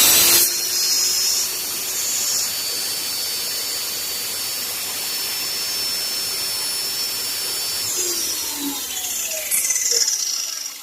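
Rockwell 31-325 1x42 belt grinder running, its belt riding on replacement Ford serpentine tensioner pulleys and a UHMW drive wheel: a steady run that is pretty quiet for such a grinder. About eight seconds in it winds down, falling in pitch as it coasts to a stop.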